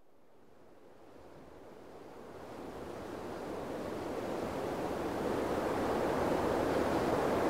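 A steady rushing noise, without any distinct tones or knocks, that swells gradually louder over several seconds as it fades in.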